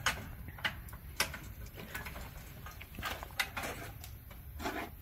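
A few sharp clicks and light rattles of a wire-mesh animal transport cage as the vervet monkey inside shifts about, with a couple of short rustles.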